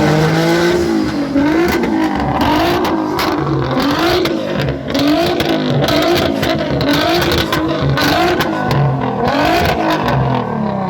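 A car engine revved over and over, its pitch rising and falling about once a second, with short sharp pops scattered through it.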